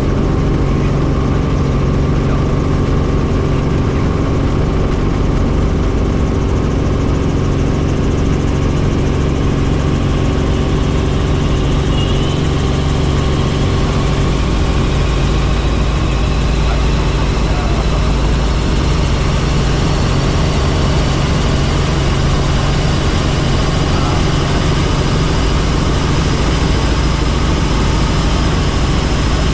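Helicopter in flight: a loud, steady drone of engine and rotor that does not change.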